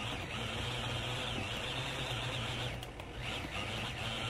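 Small electric food processor running steadily, its motor chopping raw meat into small pieces.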